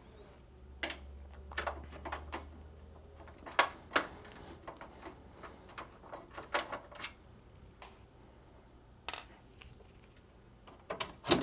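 Scattered sharp clicks and light knocks of a capture card being handled and pulled out of a PC case, spaced irregularly with short pauses between.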